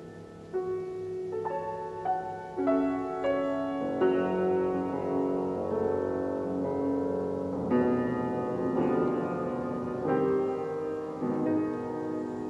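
Solo grand piano playing a slow improvisation: chords and single notes struck every half second to a second and left to ring over each other, with firmer strikes about a third and two thirds of the way through.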